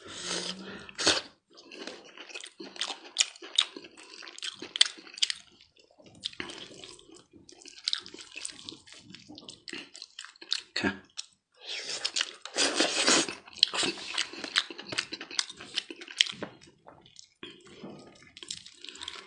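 A knife cutting and gloved hands tearing apart a cooked lamb neck on a wooden board. Wet squelching and tearing of meat, with many sharp clicks coming in clusters.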